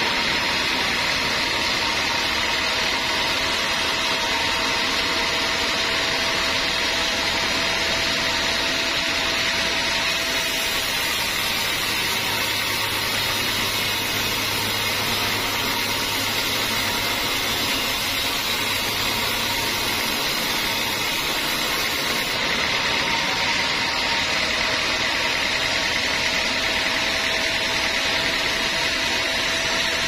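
Band sawmill running steadily as its blade cuts through a teak log, a continuous whining hiss. The hiss grows brighter for about twelve seconds in the middle.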